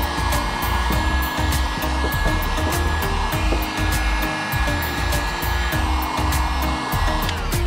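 Handheld heat gun blowing steadily, a loud fan hiss with a thin steady whine, as it heats vinyl wrap film to stretch and set it. Irregular low thumping runs underneath.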